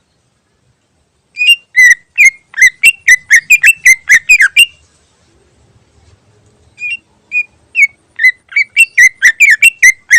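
Cucak ijo (greater green leafbird) singing loud, sharp whistled notes in two rapid bursts. The first runs for about three seconds. The second starts with a few spaced notes and then speeds into a fast string of about four notes a second.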